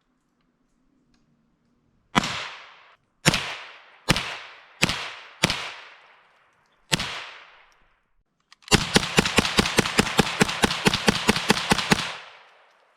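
Gunshots, each with a fading echo: six single shots a second or so apart, then, about nine seconds in, a rapid string of about twenty shots fired in quick succession for some three seconds.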